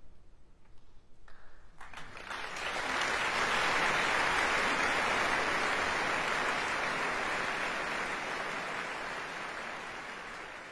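Concert audience applauding: after a quiet pause the clapping breaks out about two seconds in, quickly swells and holds steady.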